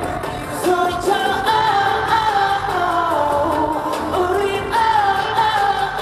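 Male K-pop group singing live into handheld microphones over a pop backing track.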